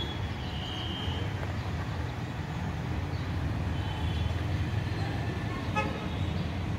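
Outdoor town ambience: a steady low rumble of distant road traffic, with a few faint high-pitched tones and a short click about six seconds in.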